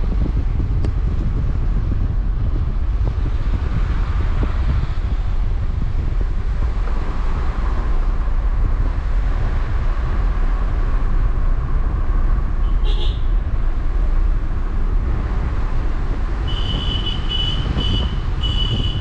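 A car driving along a highway, with a steady low rumble of road and tyre noise. There is a brief high chirp partway through and a quick run of short high chirps near the end.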